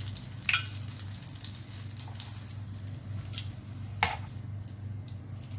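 Oil sizzling and crackling in a frying pan around banana-filled bread rolls, over a steady low hum. There are two sharp clacks of metal tongs, about half a second in and again about four seconds in.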